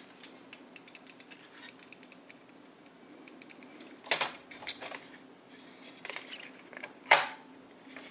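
Small hard clicks and clinks of tools and plastic parts being handled while prying open a projector lamp ballast housing, with two louder knocks about 4 and 7 seconds in.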